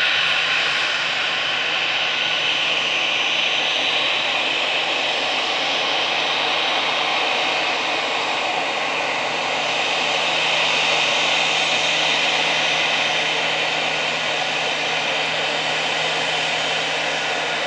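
Airbus A320-214 airliner's CFM56 turbofan engines running steadily at taxi power: a continuous jet whine and rush.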